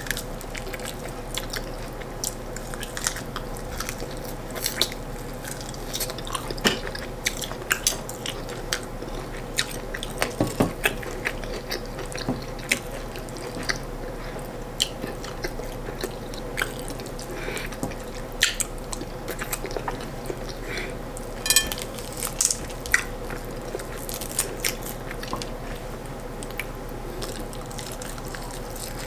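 Close-up eating sounds of a person chewing corn fufu and stewed chicken: irregular wet mouth clicks, smacks and bites, over a faint steady hum.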